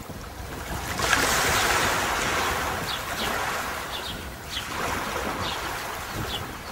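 Sea waves washing onto a beach, the surf swelling about a second in and again near five seconds.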